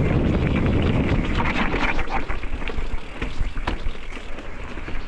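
Mountain bike ridden fast over rough trail: rumbling tyre noise with rattles and sharp knocks from the bike, loudest in the first couple of seconds, then easing.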